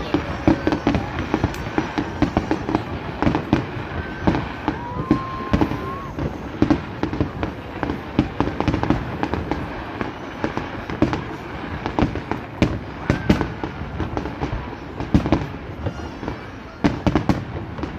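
Fireworks display: aerial shells bursting one after another in a dense, unbroken string of bangs and crackles. A brief whistle-like tone sounds about five seconds in.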